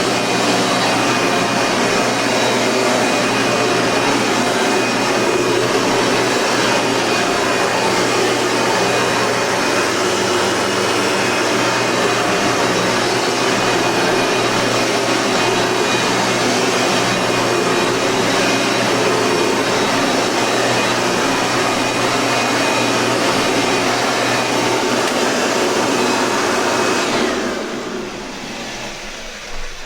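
Eureka Powerline 9-amp upright vacuum cleaner running steadily with a faint motor whine. It is switched off about 27 seconds in and winds down.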